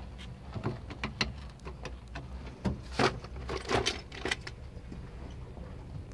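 Irregular clicks, taps and scrapes of plastic and metal as a vehicle dome light fixture is handled and the plastic zip tie holding it is cut off. A steady low hum runs underneath.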